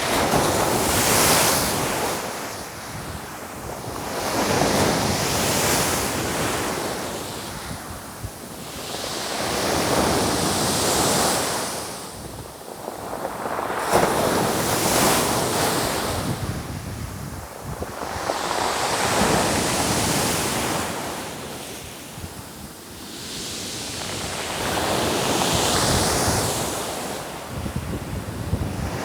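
Ocean waves rolling in, each surge swelling and fading away about every five seconds.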